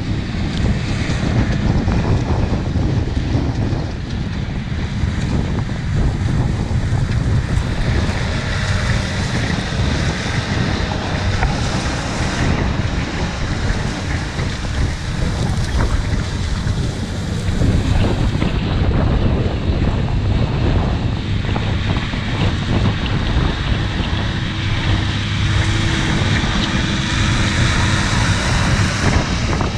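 Case Maxxum tractor engine running under load while pulling a Super Tatú eccentric disc harrow, the steel discs cutting and throwing stubble soil. Strong wind noise on the microphone runs over it.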